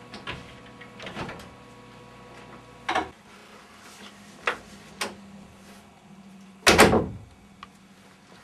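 Several separate knocks and bumps a second or so apart, the loudest a heavy double bang about seven seconds in, over a faint steady low hum.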